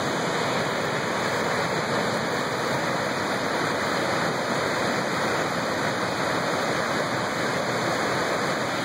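Colonnade Falls, a waterfall on the Bechler River, rushing in a steady, even wash of falling water.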